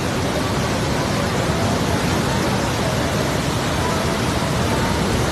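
A mountain river in heavy flood rushing past: a loud, steady rush of churning floodwater.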